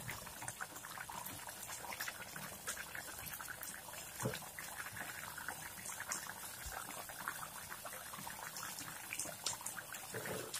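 Coconut-milk chicken stew bubbling faintly at a simmer in a pan, with many small pops; a wooden spatula stirs through it about four seconds in.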